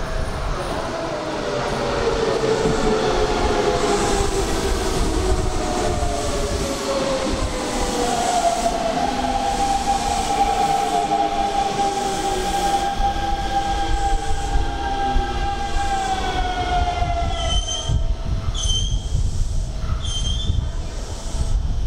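Hanshin Railway electric train slowing down: its motor whine falls in pitch, holds a steady tone, then drops away, and near the end the brakes give three short squeals as it comes to a stop.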